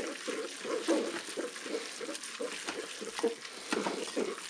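Wooden spoon stirring cooked pasta twists and tomato paste in a Cookeo multicooker's inner pot: quick, rhythmic stirring strokes with light scrapes of the spoon against the pot.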